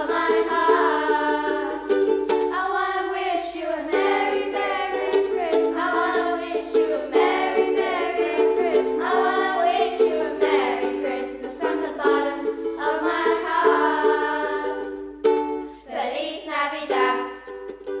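Children's choir singing, accompanied by a ukulele playing chords. The singing breaks off briefly about three-quarters of the way through.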